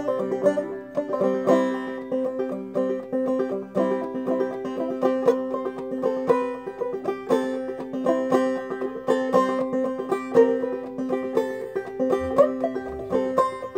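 Solo banjo played clawhammer style: a quick, even run of plucked notes over steadily ringing lower strings.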